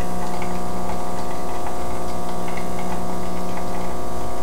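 DeLonghi EC860 espresso machine's vibratory pump running steadily, pushing water through the coffee for a single shot of the volume just programmed into the button.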